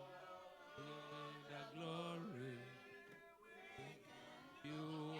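Faint, slow worship singing, with voices holding long notes of a praise chorus.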